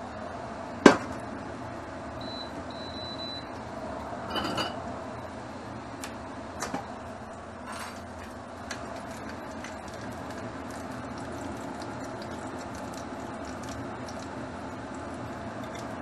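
Cookware being handled: one sharp metal clank about a second in, then a few lighter knocks and clinks of a wok, mesh strainer and ladle, over a steady fan hum.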